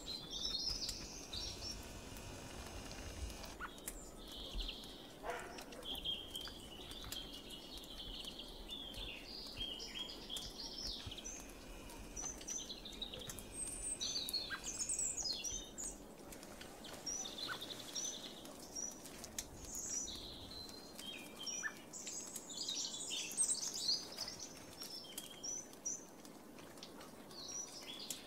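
Small songbirds calling and twittering: many short, high chirps and trills, some overlapping.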